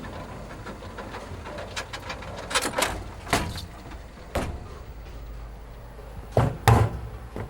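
A handful of sharp knocks and clacks, about six, irregularly spaced, with the loudest two close together near the end, over a steady low background rumble.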